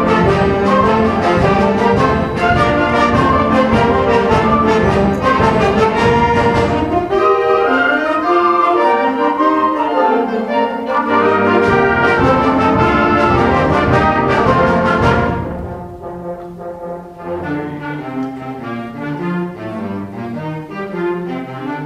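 Middle school symphonic band playing a loud full-band passage with brass prominent and percussion strikes throughout. About fifteen seconds in it drops suddenly to a softer, thinner passage.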